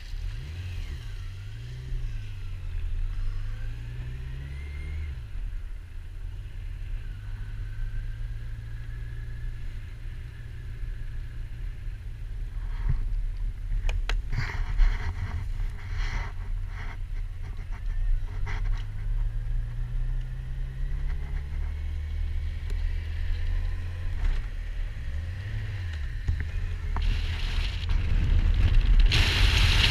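Motorcycle engine running as the bike rides along, its pitch rising and falling with the throttle and gear changes. A few knocks come around the middle, and wind noise on the microphone builds near the end.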